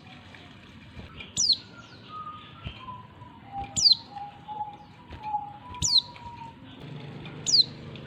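Female oriental white-eye calling: four short, high, down-sweeping call notes about two seconds apart, the kind of female call used to draw and excite male white-eyes. Fainter, lower whistled notes sound between them.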